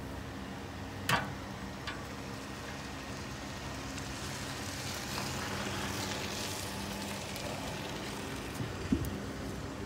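Steel lid of a Pit Barrel Cooker clanking as it is lifted about a second in and clunking back onto the barrel near the end, with a hiss from the hot charcoal in between, over a steady low hum.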